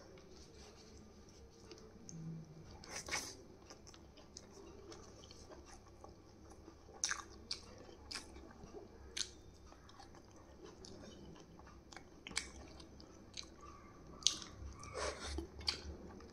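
A person eating close to the microphone: chewing, with scattered sharp crunches and mouth clicks, coming thicker near the end.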